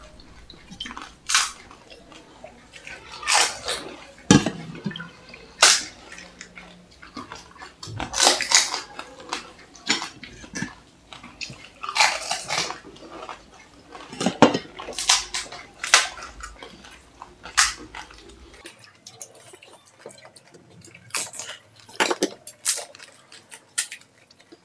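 Crisp panipuri (golgappa) shells cracking, with splashes of water as they are dipped in spicy pani, then crunched and chewed. The crunches come irregularly, about every second or two.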